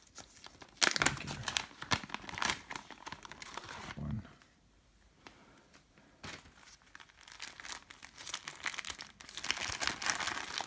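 Crinkling of a clear plastic bag and a stiff Dyneema composite fabric pack pod being handled and unfolded, in bursts that are loudest about a second in. It pauses around the middle and picks up again near the end.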